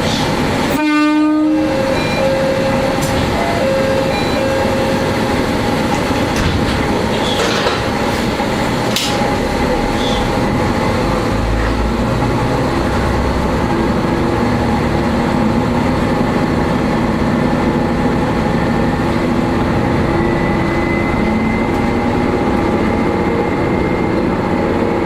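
Diesel railcar running, heard from the driver's cab: a short horn blast about a second in, then steady engine and rail running noise.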